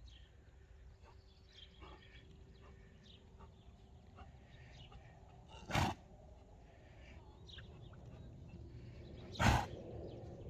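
Asthmatic horse coughing twice, about four seconds apart, each a short, loud burst: he is coughing up mucus loosened by an inhaled mucolytic while being exercised on the lunge.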